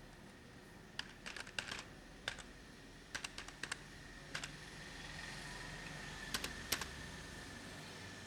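Computer keyboard being typed on in short, irregular bursts of keystrokes with pauses between them. From about halfway through, a faint steady hiss with a thin high tone comes up underneath, and a last few keystrokes land near the end.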